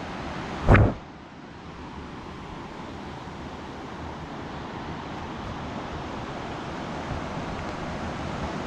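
Steady rush of a river flowing over rocks and small rapids. A short, loud thump comes under a second in.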